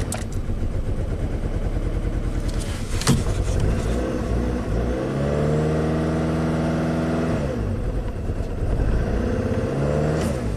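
2010 Chevy Cobalt's 2.2-litre four-cylinder engine, just started, running rough and uneven; its revs rise, hold for a couple of seconds and drop back, then rise again near the end, with a sharp click about three seconds in. It runs very poorly in limp mode, with the MAP sensor reading implausibly high.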